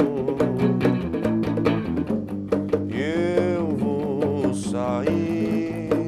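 A live band plays an instrumental passage: electric bass and electric guitar over steady hand-drum strikes. A melodic line arches up and back down in pitch about three seconds in.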